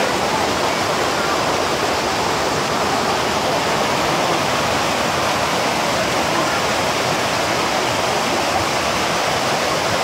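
A tall waterfall and the rocky rapids below it rushing steadily, an even, unbroken roar of water.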